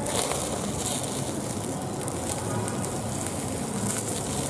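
Skewered land snails sizzling on a wire grill over a charcoal fire: a steady hiss with small crackles and pops from the coals and flames.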